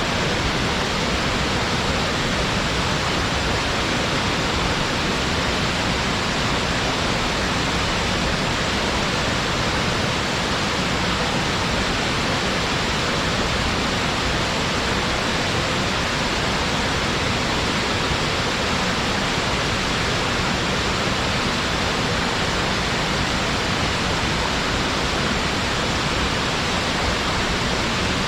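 Waterfall pouring steadily: a constant, even rush of falling water that never changes or breaks.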